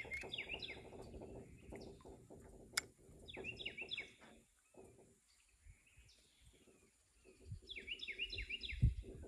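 A songbird singing three short phrases of quick, repeated falling notes, with low rustling and a single sharp click just under three seconds in.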